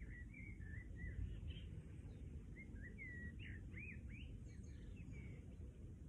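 Birds chirping faintly, a string of short notes that rise and fall, over a steady low rumble of outdoor background noise.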